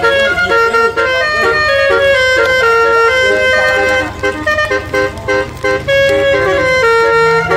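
Indonesian bus 'telolet' (basuri) multi-tone air horn playing a melody in short held notes that step up and down in pitch, over the steady rumble of the bus engine.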